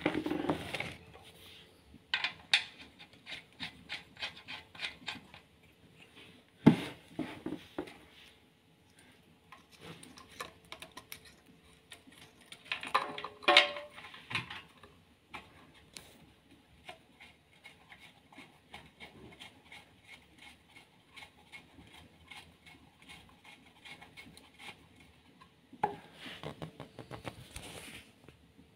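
Hand tools and bolts clicking and clinking against metal engine parts during reassembly of a Renault Clio 1.2 16v engine, with runs of rapid clicks and a few sharper knocks.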